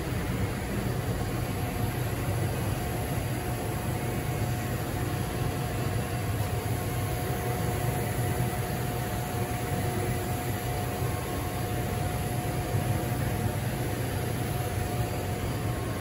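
Steady low mechanical hum with an even hiss and a faint steady whine above it, the constant drone of running machinery.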